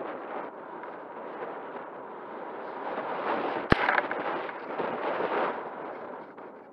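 Airflow rushing over the onboard camera's microphone on a Volantex Phoenix 2400 RC glider in flight. It swells in the middle and eases toward the end, with one sharp click a little past halfway.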